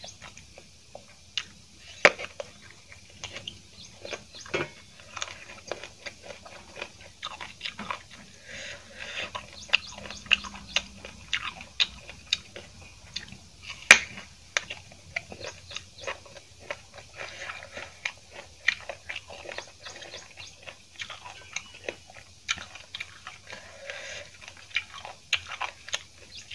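Close-up chewing and biting, with many crisp crunching clicks from bites of a raw green vegetable eaten with rice. The sharpest bites come about two seconds in and again about fourteen seconds in.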